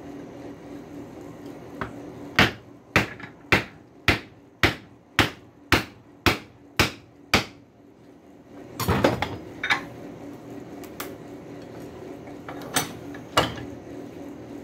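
Hammer blows seating a forged coil-spring screwdriver into its burned-in wooden handle. There are about ten sharp, even strikes, roughly two a second, then a short clatter and a few scattered knocks.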